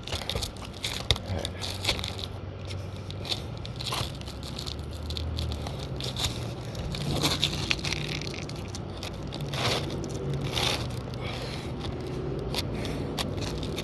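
Roof shingles being worked loose by hand: irregular scraping, crackling and tearing as a shingle is pulled up and ripped away from its nails.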